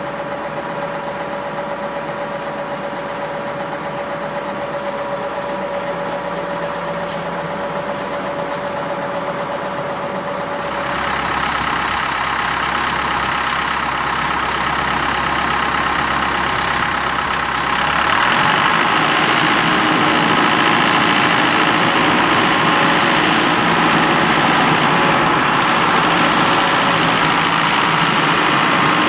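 Diesel engine of a Versatile tractor running steadily, getting louder in two steps, about a third of the way in and again just past halfway.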